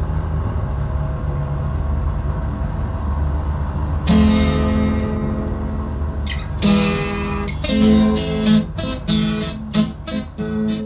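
A low steady rumble, then about four seconds in an acoustic guitar chord is struck and left to ring out, followed by strummed chords in a steady rhythm: the guitar introduction to a song.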